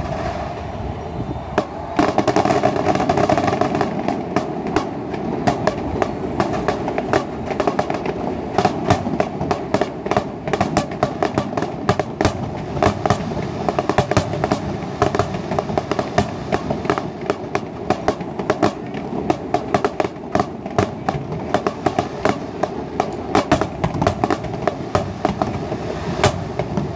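Fireworks going off: a steady run of sharp bangs and crackles that thickens about two seconds in, over a constant background rumble.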